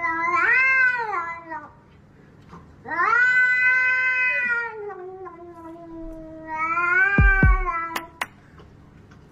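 Domestic cat meowing: about three long, drawn-out meows, each rising and then falling in pitch. A couple of low thumps and two sharp clicks come near the end.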